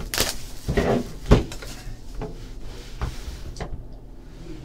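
A hobby box of trading cards and its packaging being handled and opened. A cluster of knocks and rustling comes in the first second and a half, then lighter handling clicks.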